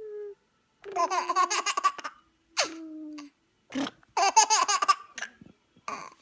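Baby laughing hard in two bursts of rapid, breathy laughs, each about a second long, with a few shorter laughs near the end.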